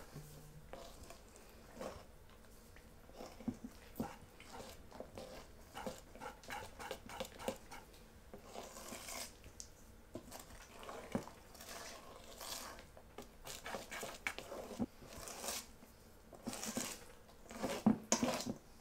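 Hand whisk working melted butter into thick madeleine batter in a mixing bowl: a run of irregular light clicks and wet swishes as the wires stir through the batter and touch the bowl, busier near the end.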